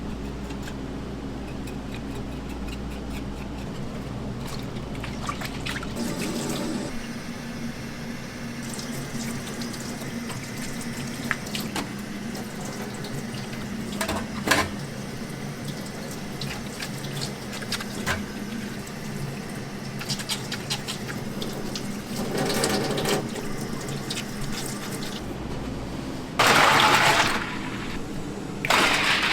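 Kitchen work sounds: a steady low hum with scattered clicks and knocks, and a loud rushing noise for about two seconds near the end.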